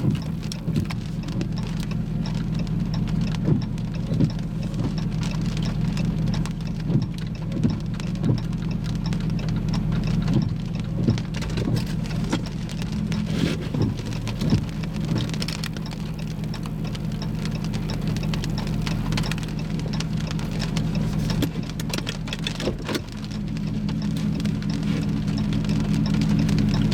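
Rain falling on a vehicle, with scattered heavier drops striking irregularly over a steady low engine hum.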